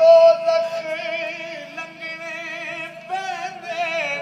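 A man singing a Punjabi devotional kalam, drawing out long wavering notes with no words. A new phrase starts about three seconds in.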